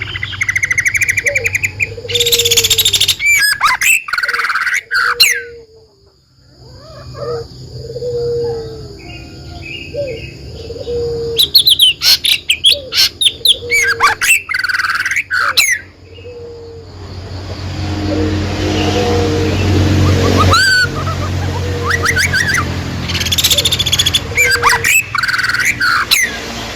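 Birds chirping and singing in bursts of quick high calls and trills, over a low short note repeated about once a second and a steady low hum.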